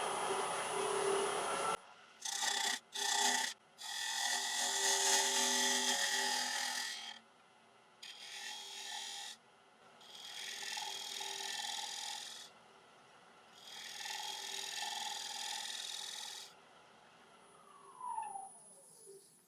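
Wood lathe running with a steady whine while a turning tool takes a series of cuts on the rim of a dried Irish yew bowl, each cut a hiss of shavings lasting from a moment to about three seconds. Near the end the lathe's whine falls in pitch as it slows down.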